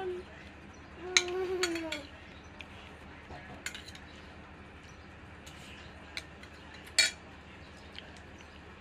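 Eating sounds: a few sharp clicks and clinks, the loudest about seven seconds in. A brief voice holds one note about a second in.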